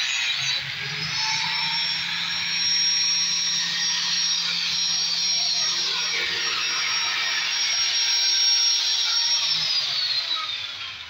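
Handheld angle grinder running steadily against a stainless steel railing tube, a high motor whine over a grinding hiss. Near the end it is switched off and the whine falls away as the disc spins down.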